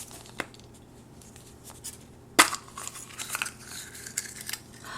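Small plastic surprise packet from a chocolate egg being opened by hand: a few light clicks, one sharp snap about two and a half seconds in, then crinkling of the wrapper.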